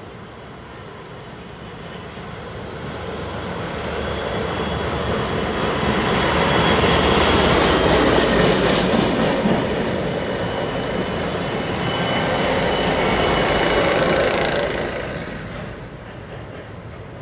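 Two Network Rail Class 57 diesel locomotives with the yellow Snow Train pass at speed, engines running and wheels rumbling on the rails. The sound builds up, is loudest as the front and then the rear locomotive go by, and fades away near the end. A thin high wheel squeal shows in the second half.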